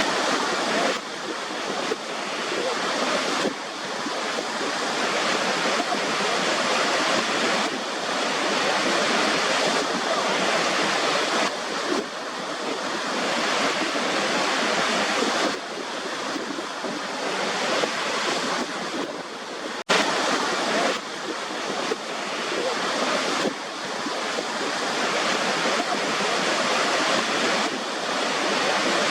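Continuous rushing-water noise that swells and eases every few seconds, with a sudden dropout for an instant about twenty seconds in, where the recording is spliced.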